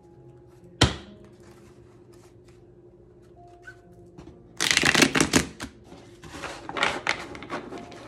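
Neo Rider tarot deck being shuffled by hand: a single sharp tap about a second in, then two stretches of rapid card flutter from about halfway through.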